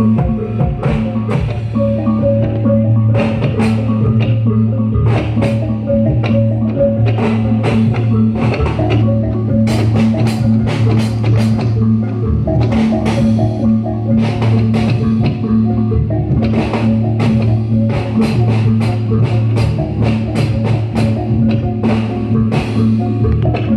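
Live Reog Bantul accompaniment music: drums and struck percussion beating a busy rhythm over a steady, low sustained tone.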